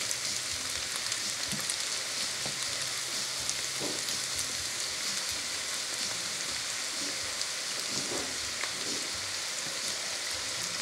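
Ground-turkey fried rice sizzling steadily in a large frying pan, a fine crackling hiss, with soy sauce just mixed in; a wooden spoon stirs through the rice at first, then rests.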